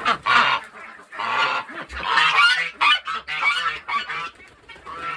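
Geese honking in a mixed poultry flock: a run of loud, harsh calls, several in quick succession, with softer low calls underneath in the second half.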